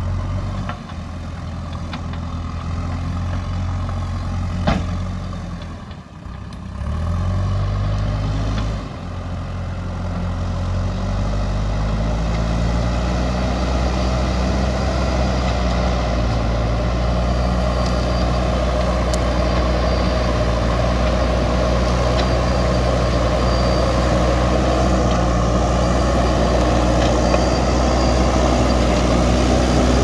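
JCB backhoe loader's diesel engine running under load, revving up about seven seconds in and again from about ten seconds, then holding a steady, higher-revving drone. A single sharp click about four and a half seconds in.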